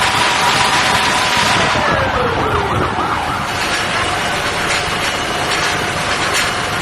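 Emergency vehicle siren over steady engine and traffic noise: a held tone, then a wavering, falling glide about two seconds in, settling to a lower held tone.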